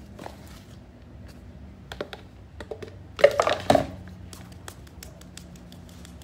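Flour being sifted in a handheld mesh sieve shaken over an aluminium foil pan: a run of quick, light taps and rattles, with a louder cluster of knocks about three seconds in.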